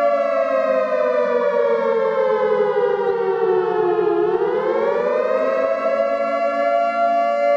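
Outdoor warning siren sounding a steady two-note chord, its pitch sliding slowly down for about four seconds and then climbing back up.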